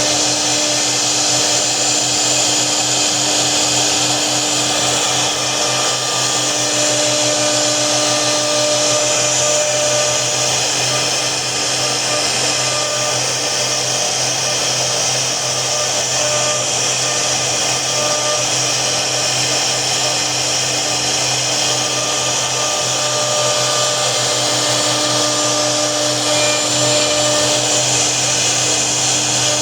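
CNC router spindle running steadily, with a higher whine that fades in and out every few seconds.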